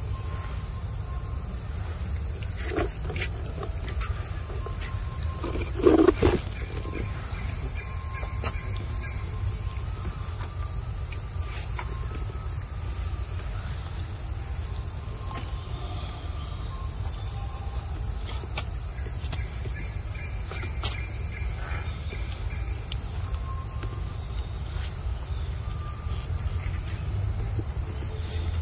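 Steady high-pitched drone of forest insects, with a low rumble underneath. A brief low-pitched sound stands out about six seconds in, with a fainter one near three seconds.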